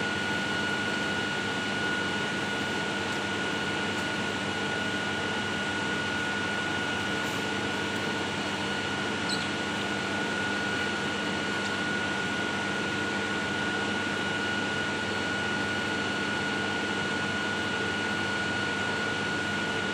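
Steady machine hum with a constant high-pitched whine over it.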